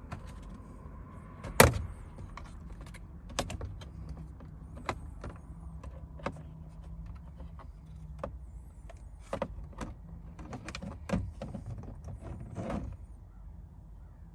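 A plastic car door trim piece being pried off with a trim removal tool: a series of sharp clicks and snaps as its retaining latches pop out, the loudest about a second and a half in, with smaller plastic knocks between.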